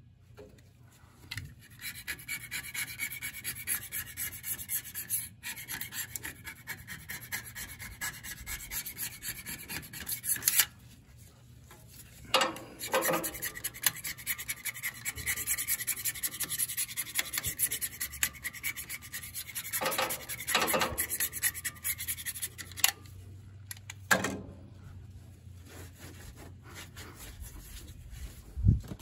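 Quick back-and-forth scraping of the steel knife seat on a Vermeer BC1500 chipper drum with a hand scraper, cleaning off sap and grime. It comes in long runs of rapid strokes broken by a few sharp knocks, then softer rubbing near the end.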